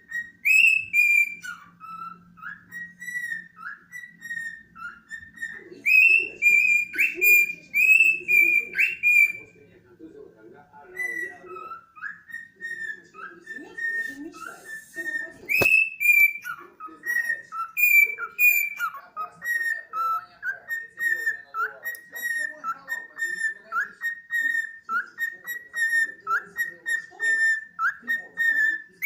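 Cockatiel whistling a taught tune, a long string of short whistled notes, with softer chattering under the whistles in the middle.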